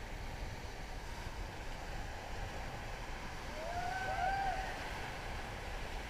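Steady rush of river water around a raft, with wind buffeting the microphone. About four seconds in comes one brief high cry that rises and then falls.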